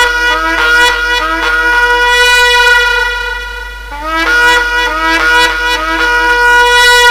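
Shofar blown in two long blasts. Each opens with a run of short, broken notes and settles into a long held note; the second blast begins about four seconds in.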